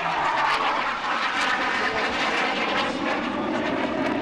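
BAE Hawk 127 jet trainer's Rolls-Royce Turbomeca Adour turbofan roaring steadily as the jet flies past with its speed wound up, the sound falling in pitch as it goes by.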